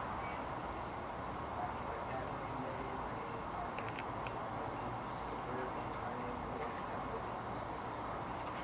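Crickets chirping in a steady, high-pitched trill over an even background hiss.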